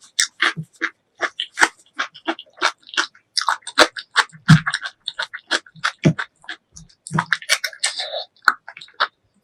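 Close-miked eating sounds: wet mouth smacks and chewing of spicy pork leg curry and rice, a quick run of short smacks about two to three a second.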